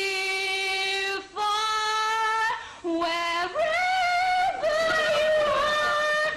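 A woman's solo voice singing a slow pop ballad in long held notes that step up in pitch, with vibrato on the higher notes.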